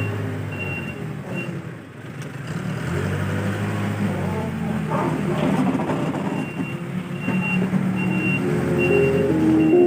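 Case 580L backhoe loader's diesel engine running under working load, dipping briefly about two seconds in, with its reversing alarm beeping steadily near the start and again through the second half.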